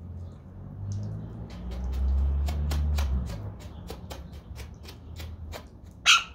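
Hands scrubbing a wet dog's coat: a quick run of short wet rubbing and squishing strokes, about three a second, with a low rumble partway through. One sharp, louder sound comes near the end.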